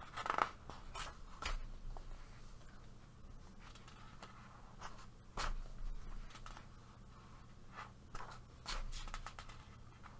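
Paper rustling and sliding as a paperback coloring book's pages are handled and turned, in scattered short strokes. The loudest comes a little past halfway, with a cluster of quicker rustles near the end.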